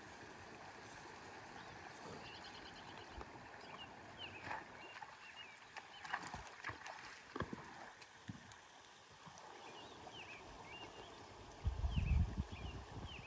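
Horse hooves splashing and knocking through a shallow muddy creek, a few separate steps about halfway through, over an outdoor hiss with scattered high chirps. A loud low rumble comes in near the end.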